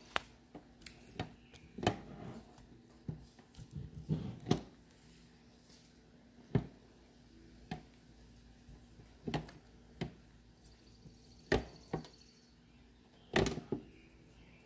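Silicone spatula stirring and folding stiff, cooked play dough in a ceramic crock pot insert, making irregular soft knocks and scrapes as the spatula and dough hit the pot's side. The dough is thick and nearly done, coming away from the pot.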